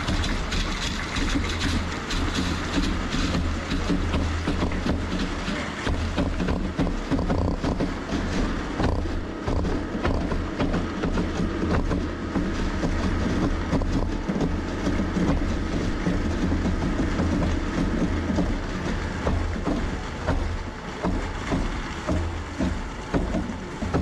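Concrete pump truck running and pushing concrete through the boom's rubber end hose into the wall forms: a loud, steady mechanical rumble that turns into a regular pulsing, about two pulses a second, in the last few seconds.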